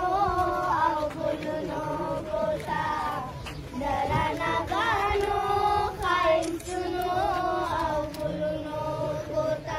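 A group of children singing a chant together, high voices holding long, wavering notes.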